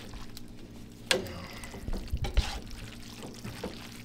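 A spoon stirring and tossing sauced spaghetti in a pot, with wet noodle sounds, a sharp knock of the spoon against the pot about a second in and a few dull knocks around two seconds in.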